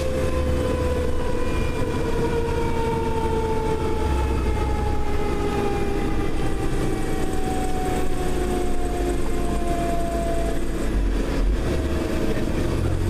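Federal Q mechanical siren winding down, its wail falling slowly and steadily in pitch, over the fire engine's low engine rumble, heard from inside the cab.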